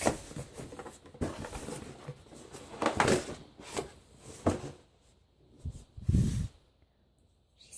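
Rustling and scraping of a cardboard doll box and its packaging being handled and pulled at, with scattered clicks and a dull thump about six seconds in; the box is stuck.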